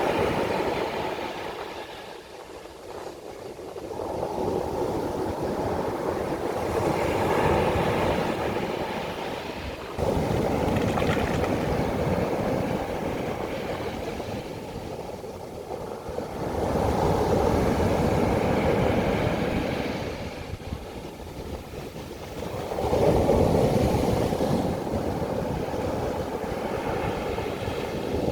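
Sea waves breaking and washing up a beach, the surf swelling and falling back about five times with a deep rumble underneath.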